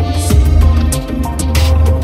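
Background music with a steady beat, deep bass and held notes.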